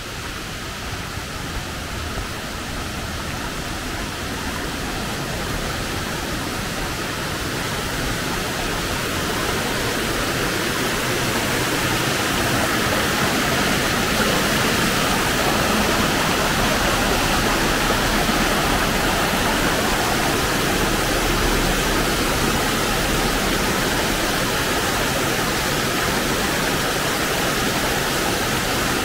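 Steady rush of flowing water, growing gradually louder over the first half and then holding steady.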